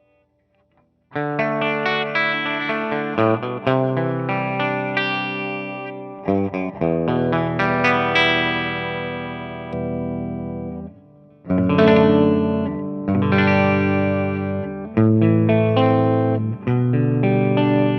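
Gibson SG electric guitar played clean through a hand-wired Fender Deluxe Reverb Reissue amplifier into a 4x12 cabinet with a Celestion G12-65 speaker: chords and single notes ringing out with the amp's own reverb. It starts about a second in.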